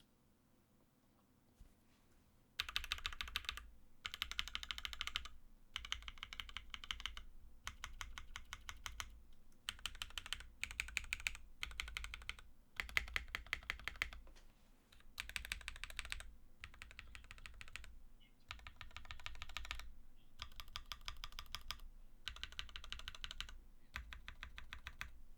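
Typing on a custom mechanical keyboard, the Cable Car Designs Angel with a polypropylene plate, GMK keycaps and lubed Creampacas linear switches: quick runs of keystrokes in bursts of a second or so with short pauses, starting a couple of seconds in.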